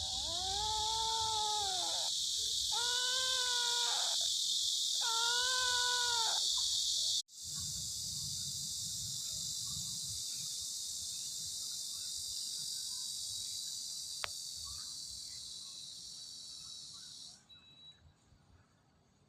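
A kitten meowing: four drawn-out meows about a second apart in the first seven seconds. A steady high chirring of insects runs underneath and stops abruptly near the end.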